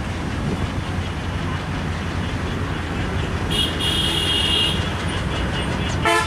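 Broad-gauge diesel locomotive hauling a passenger train, its engine and the train running with a steady low rumble. A brief high-pitched squeal comes about halfway through, and a horn blast starts at the very end.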